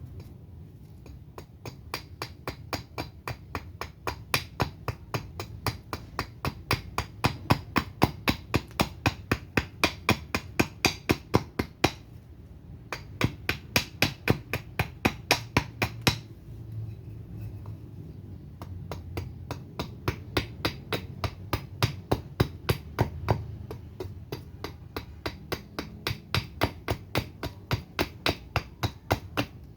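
Axe chopping into a surian (Toona sureni) wood spoon blank to rough out its shape: a fast, steady run of short wooden chops, about two to three a second. It breaks off briefly about twelve seconds in and again around sixteen to eighteen seconds.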